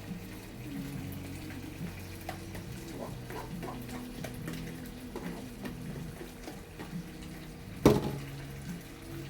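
Quiet background music, with light clicks and clatter and one sharp knock about eight seconds in.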